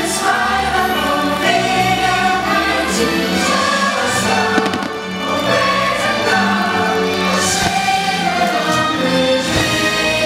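Fireworks-show soundtrack: a choir singing over orchestral music, with the bang and crackle of fireworks now and then.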